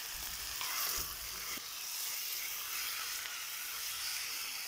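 Diced raw pork sizzling steadily in hot oil in an earthenware clay pot, with a wooden spoon stirring it. There are a few soft knocks from the spoon in the first second or so.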